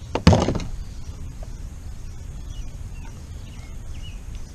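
A single sharp knock about a quarter second in, with a short rattling smear after it, over a steady low rumble; a few faint bird chirps follow.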